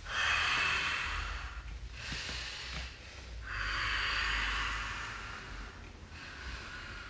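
A man breathing hard and audibly through the nose and mouth: several long, hissing breaths in and out, during a held standing yoga pose with the arms raised.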